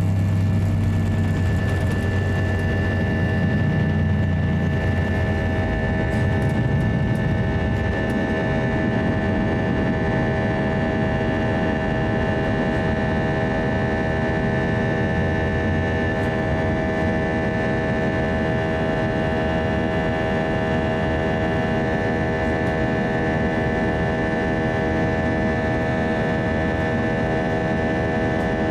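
Airbus A320-200 jet engines at takeoff thrust heard from inside the cabin: a steady loud noise with several held whining tones. A heavy low rumble from the wheels on the runway dies away about six seconds in as the aircraft lifts off.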